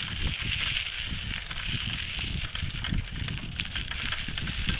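Wind buffeting a handheld phone's microphone on a moving bicycle: an uneven low rumble with crackling handling noise, over a steady high hiss.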